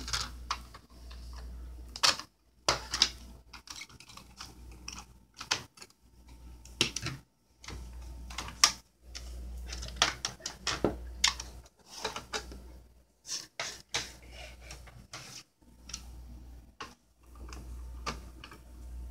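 Plastic smoke alarms being handled and twisted off their mounting bases: irregular clicks, snaps and light knocks of plastic on plastic, with short pauses between.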